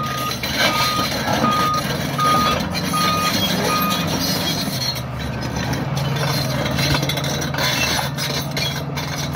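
Case crawler dozer's diesel engine running steadily under load while its backup alarm beeps six times, about one beep every three-quarters of a second, then stops about four seconds in. Scattered knocks are heard as the rear ripper tooth tears through rock.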